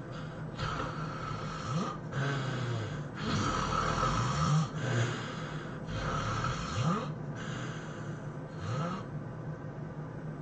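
A person snoring heavily: a run of about seven loud, rasping breaths, each about a second long with short gaps between, some with a low grunting pitch that slides upward. It dies down near the end.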